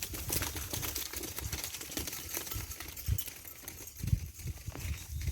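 Dense crackling and rustling with irregular low thumps, like movement through dry vegetation.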